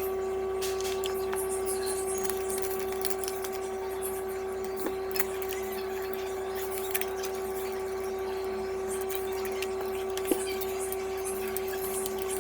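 A steady hum with a few faint, scattered clicks of small metal parts being handled.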